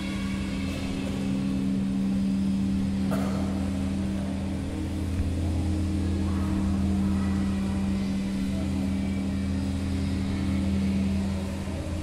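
A steady low drone of several held tones, with one short click about three seconds in.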